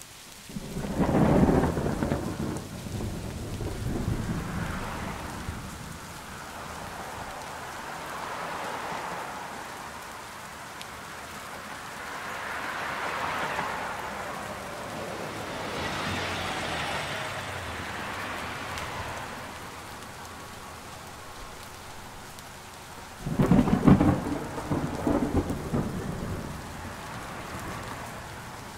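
Steady rain and the hiss of tyres on a wet road, heard from inside a moving bus, swelling and fading several times. Two heavy low rumbles stand out, one about a second in and another near the end, each dying away over a couple of seconds.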